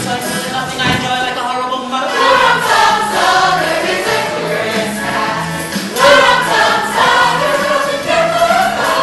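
Musical-theatre ensemble singing together in chorus over instrumental accompaniment with a steady bass beat of about two notes a second.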